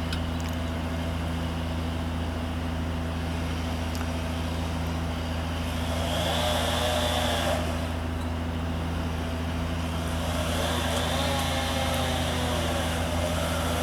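Utility bucket truck's engine running steadily with a low hum. A higher whirring swells up twice, about six and eleven seconds in.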